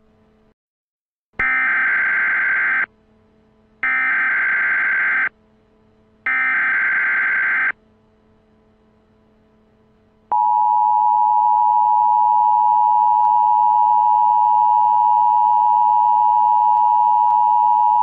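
Emergency Alert System header: three bursts of SAME digital data tones, each about a second and a half long, then, after a short pause, a long steady EAS attention tone.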